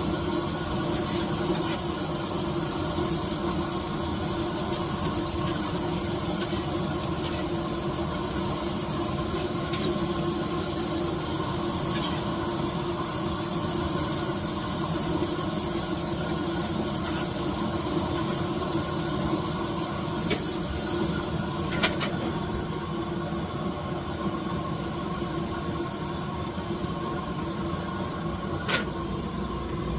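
A steady mechanical hum with a hiss, with a few sharp clicks in the second half.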